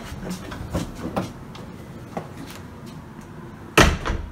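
A few light knocks and handling clicks, then a room door shutting with one loud thud near the end.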